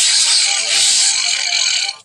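Cartoon Giganotosaurus roar sound effect: one long, loud, raspy roar that cuts off sharply near the end, with film music under it.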